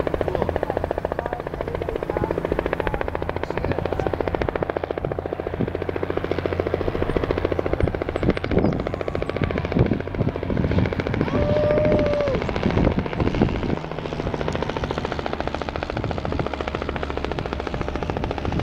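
Low-flying propeller aircraft overhead: a steady engine drone with a fast, even pulsing.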